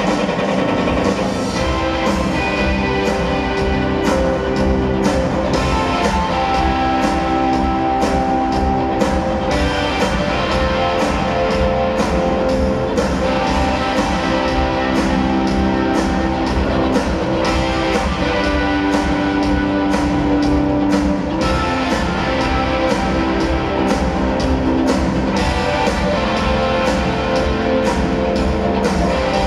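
Live rock band playing loud, with electric guitars over a steady drum beat.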